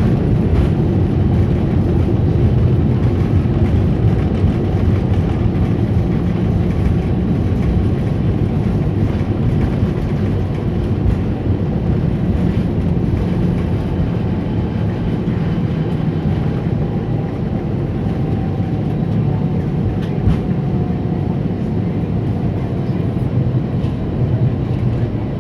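Airbus A320 cabin noise on the ground after landing: a steady low rumble of the jet engines and the wheels rolling. A faint whine slowly falls in pitch partway through.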